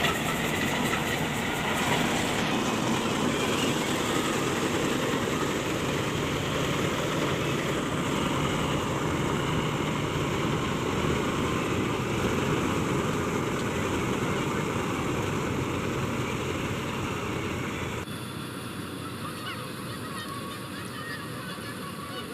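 Heavy diesel farm machinery running steadily, with the sound dropping abruptly to a quieter, thinner level about four seconds before the end.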